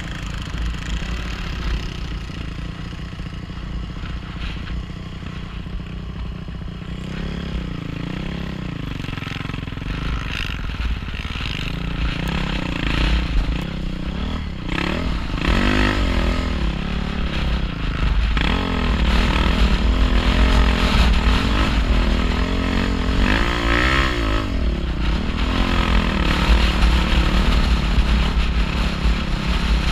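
Dirt bike engine running under way on a rough trail, its pitch rising and falling over and over as the throttle is opened and closed. It gets louder in the second half.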